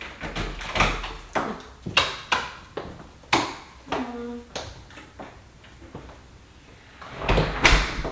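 A house door being shut and locked: a run of irregular clicks, knocks and rattles from the latch, lock and keys, then louder thumps near the end.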